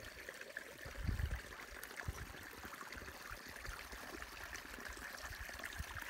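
Shallow creek trickling faintly over rocks, with a few low bumps about one and two seconds in.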